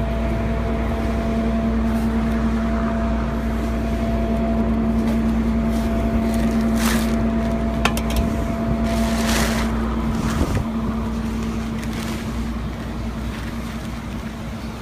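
Vehicle engine and road noise heard from inside a moving vehicle: a steady low rumble with a droning hum that stops about ten seconds in, and a few sharp clicks a little before that.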